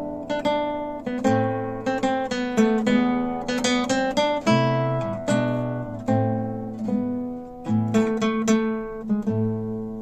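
Acoustic guitar background music: strummed chords and plucked notes that ring and fade between strokes, over a low bass line.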